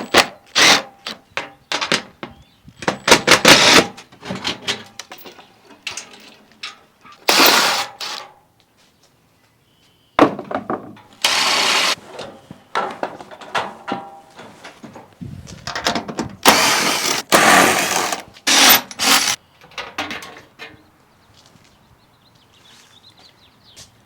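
A power driver backing screws out of wooden trailer deck boards, running in repeated short bursts of up to a couple of seconds with pauses between them.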